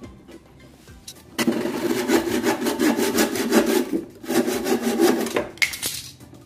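A handsaw cutting a wooden board in quick back-and-forth strokes. It starts about a second and a half in, pauses briefly near the middle, and stops shortly before the end.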